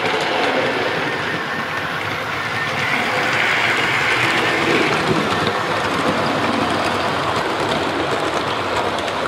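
OO gauge model train running past on the layout's track, a steady rumbling rush of wheels and motor.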